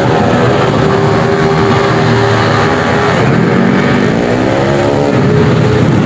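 Several small racing motorcycles running hard as a pack approaches, their engine notes overlapping and rising and falling in pitch.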